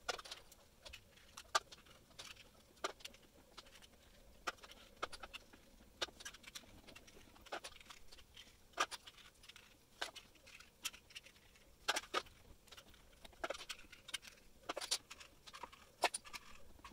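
Quiet, irregular clicks and taps of 3D-printed PLA plastic parts as they are handled, set down on a wooden floor and joint pins are screwed into the bone pieces.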